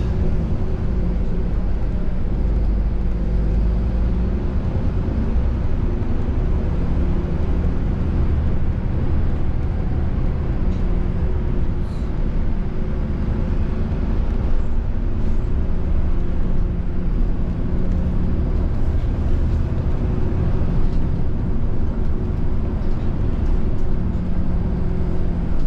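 City bus running along the road, heard from inside the passenger cabin: a steady low rumble of engine and road noise with a faint steady drone above it.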